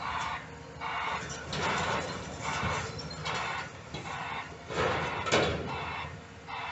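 Demolition excavator working in broken concrete: a steady low machine rumble under a regular pulsing noise about one and a half times a second, with a louder crash of concrete about five seconds in.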